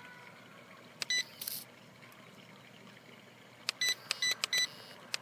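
Two short hissing pops about a second in, then a quick run of five short, high electronic beeps near the end, as the RC quadcopter's transmitter button is tapped to fire the Gatling gun attachment's missiles.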